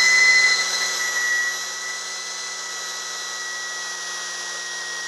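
Cordless drill motor whining steadily at speed while drilling an oil hole through a Ford Model T fourth main bearing cap. It gets somewhat quieter about two seconds in.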